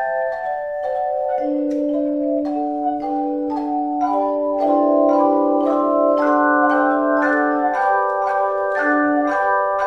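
Instrumental keyboard music with bell-like struck notes, about two a second, over held chords, and no singing.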